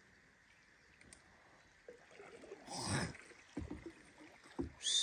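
River water splashing and sloshing around a wading spearfisherman: a short rush of splashing about three seconds in, then a few low thuds of water. Near the end a louder hiss with a high, slowly falling whistle begins.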